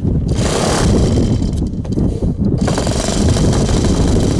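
Saito FA-62B four-stroke glow engine running steadily on a model airplane, a rapid even pulsing.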